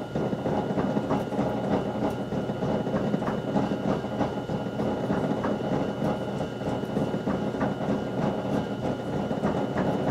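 Wood lathe running steadily, its motor humming, with faint irregular ticking, while a pencil marks layout lines on the spinning blank.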